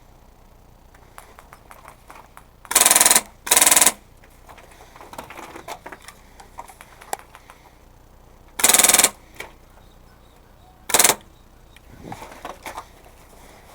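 Airsoft gun firing four short full-auto bursts, each about half a second or less. Two come close together about three seconds in, a third about nine seconds in, and a shorter one near eleven seconds.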